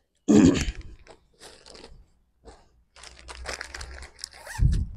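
Clear plastic garment packet crinkling and rustling as it is handled. The loudest rustle is about a third of a second in, scattered crackles follow later, and there is a dull thump near the end.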